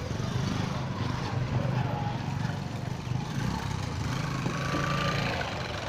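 Motor vehicle engine running steadily, with general street traffic noise.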